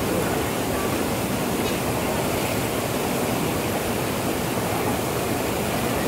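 Shallow stream rapids rushing over rocks: a steady, unbroken wash of flowing water.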